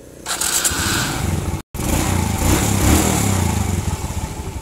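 Suzuki Smash/Shogun single-cylinder four-stroke motorcycle engine starting up about a third of a second in and running, louder in the middle and easing off near the end, with a momentary audio dropout early on. It runs fairly smooth, without the timing-chain clatter, now that the slack chain's tensioner has been packed out with a bolt.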